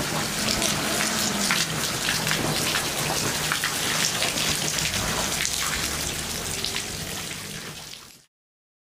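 Gas-laden spring water bubbling up in a metal pipe and splashing out of its spouts onto paving, a dense crackly patter of water, while the methane rising from it burns in flames over the surface. The sound fades out near the end.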